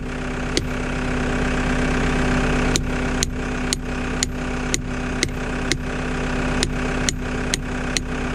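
Hammer blows on a steel pin, driving it into the track's connector, about two strikes a second, with a pause of about two seconds near the start. The Caterpillar 262 skid loader's diesel engine idles steadily underneath.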